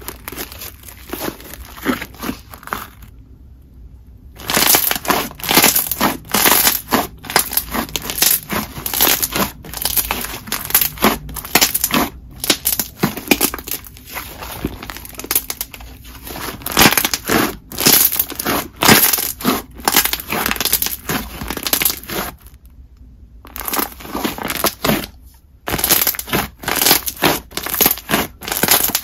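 Thick clear slime being squished, pressed and stretched by hand, giving dense, irregular bubble pops and crackly clicks, with a couple of brief pauses.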